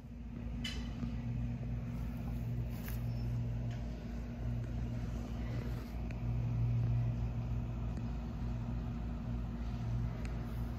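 A steady low machine hum with a constant pitch, with a few faint clicks.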